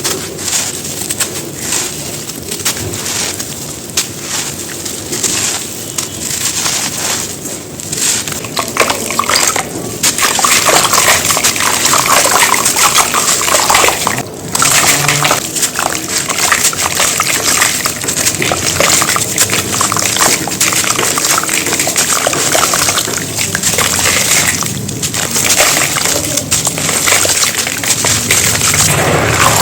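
Big chunks of dry cement being crumbled and crushed, a dense gritty crackling of many small cracks, louder from about ten seconds in.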